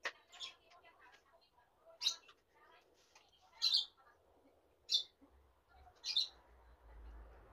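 A bird chirping repeatedly: short, high chirps about once every second and a half.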